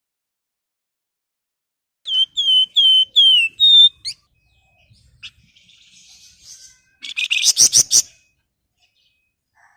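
Javan fulvetta (flamboyan) singing. About two seconds in it gives a run of six or so short clear whistled notes, some dipping or falling. A few seconds later comes a brief fast, harsh chattering rattle.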